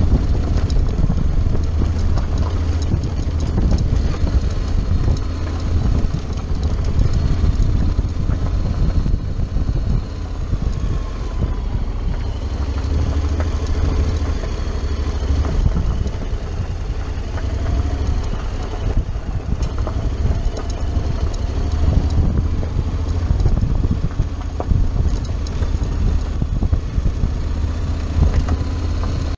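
Honda X-ADV's parallel-twin engine running at low speed while the bike rides a gravel track. Heavy wind rumble on the helmet microphone runs over it.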